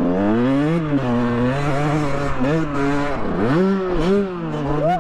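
Dirt bike engine under hard riding, its revs rising and falling several times as the throttle is worked on a run at a jump.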